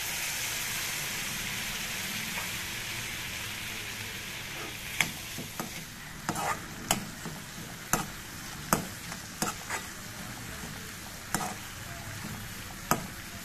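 Milk sizzling as it hits grated carrots frying in ghee in a hot non-stick pan, the hiss loudest at first and slowly fading. From about five seconds in, a metal spoon stirs the mixture, knocking sharply against the pan at irregular intervals of about a second.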